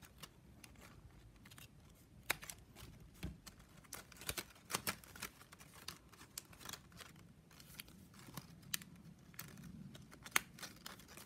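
Stiff plastic strapping band being woven by hand: faint, irregular clicks and scrapes as the strips are pushed, bent and pulled through the weave.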